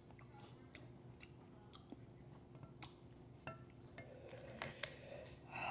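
Faint eating sounds: quiet chewing with scattered small clicks and cracks as fingers pick at crab legs and shell on a plate.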